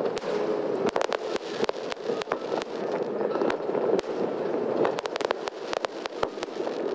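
Aerial fireworks shells bursting in a fireworks display: a rapid, uneven series of sharp bangs and crackles.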